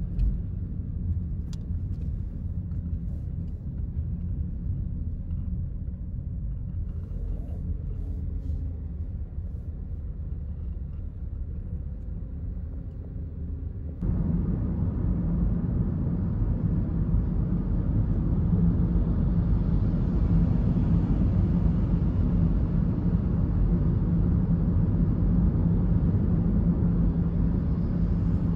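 A car driving, heard from inside: a steady low rumble of engine and tyre noise. About halfway through it cuts to a louder rumble with more hiss.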